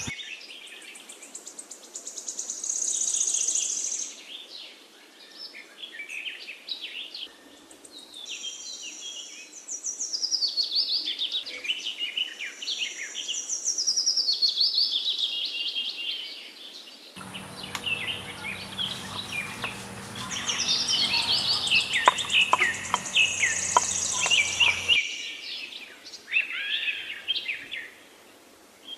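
Many small birds chirping and singing in overlapping, quick whistled calls. About two-thirds of the way through, a low hum and scattered light clicks come in beneath the birds for several seconds.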